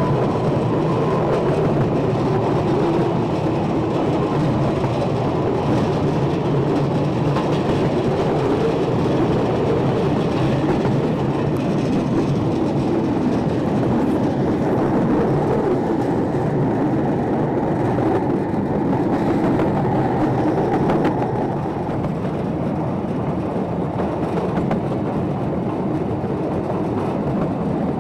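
Ffestiniog Railway's narrow-gauge gravity train freewheeling downhill, heard from an open wagon: a steady rolling rumble of wheels on the rails, easing a little about three quarters of the way through.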